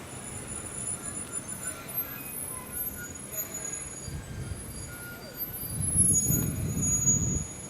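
JR East 211 series electric train standing at the platform just after arriving: a low mechanical rumble with faint thin high-pitched tones, growing louder about six seconds in.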